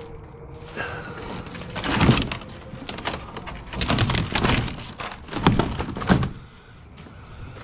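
Old porch material being pulled and broken apart by hand, with crackling, snapping and clattering in three bursts, about two, four and six seconds in.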